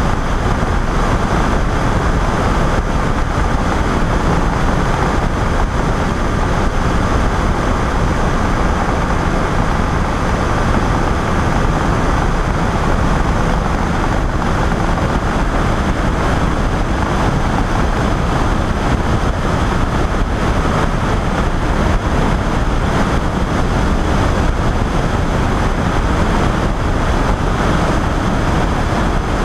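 Flexwing microlight trike in steady cruising flight: the pusher engine and propeller drone evenly under a loud, unbroken rush of wind on a wing-mounted camera.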